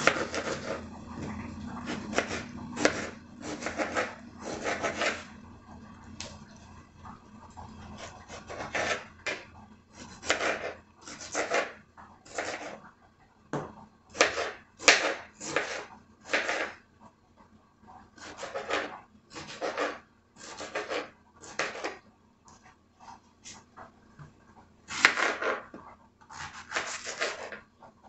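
Kitchen knife cutting tomato and cucumber on a plastic cutting board: short rasping strokes of the blade through the skin and onto the board, coming in irregular runs with pauses between them.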